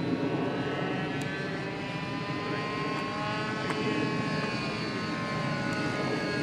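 Propeller-driven radio-controlled model aeroplanes flying overhead: a steady engine drone made of several pitches that drift slowly up and down as the planes pass.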